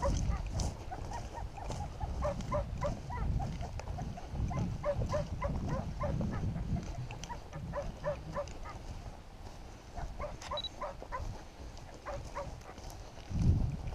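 Many short animal calls, several a second, over a low rumble of wind or handling noise on the microphone.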